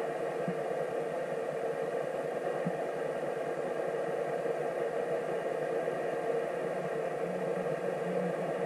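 Steady FM static from a Yaesu FT-991A transceiver's speaker, tuned to the ISS 437.8 MHz downlink with no signal coming through.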